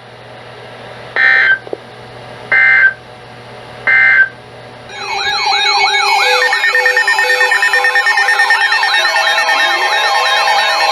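Three short bursts of EAS data tones, about 1.4 seconds apart, typical of the end-of-message signal that closes an Emergency Alert System broadcast. About five seconds in, a dense jumble of many wailing sirens and steady alert tones starts at once and carries on loudly.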